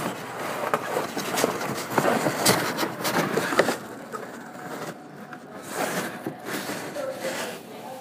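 Rustling and scattered knocks from the phone being handled and moved about.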